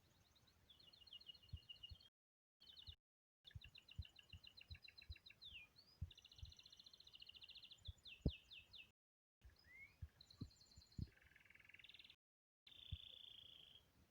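A songbird singing faint, rapid trills and short sweeping notes in varied phrases, with soft low knocks underneath. The song breaks off in a few short dropouts to dead silence.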